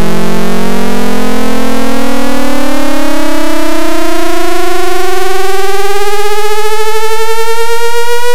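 Loud, buzzy synthesizer tone sliding steadily upward in pitch by more than an octave. It is a sonification that maps a sprinter's elapsed time and track position in a 100 m race to pitch.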